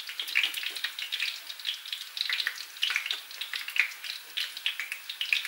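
Hot oil crackling and sizzling in a frying pan, a steady run of small irregular pops.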